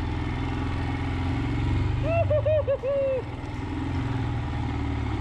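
Royal Enfield Himalayan's single-cylinder engine running under way, its low steady thump shifting in pitch a couple of times with the throttle. About two seconds in, the rider's voice sings a brief run of 'da-da' syllables over it.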